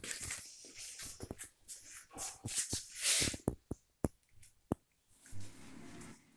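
Handling noise: irregular rustling and scraping, with two sharp clicks about four and four and a half seconds in.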